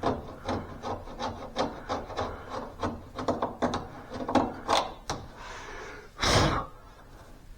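Hand scraping on car-body sheet metal in short, irregular strokes, about two or three a second, working off seam sealer. A single louder knock about six seconds in.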